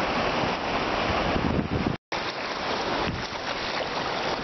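Shallow surf washing and sloshing around a person crouched in the water, with wind rumbling on the microphone. The sound cuts out for an instant about two seconds in.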